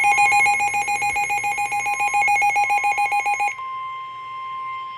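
Weather radio alert tones for a severe thunderstorm warning: a loud, buzzing two-tone alarm pulsing rapidly for about three and a half seconds, over a steady single tone that carries on alone once the buzzing stops.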